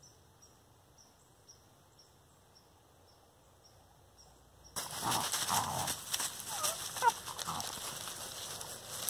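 Faint insect chirping, short high chirps repeated about three times a second. Just under five seconds in, loud rustling and scuffing close to the microphone suddenly takes over, with a few brief whine-like sounds in it.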